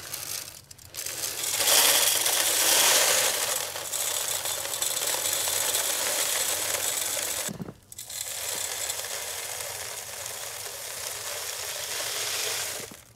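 Bird seed rattling as it is poured into a feeder, in two long pours with a brief break about eight seconds in.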